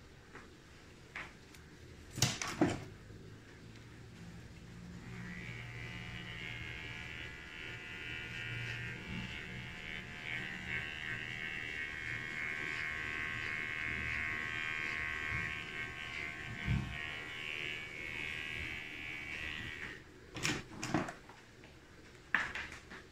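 Electric hair clippers running steadily for about fifteen seconds, then switched off. A few sharp clicks of handling come before they start and just after they stop.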